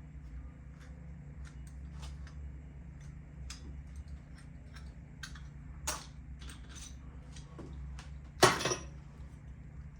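Hand tools and metal engine parts clicking and clinking as they are handled, with a sharper knock about six seconds in and one loud clank about eight and a half seconds in, over a steady low hum.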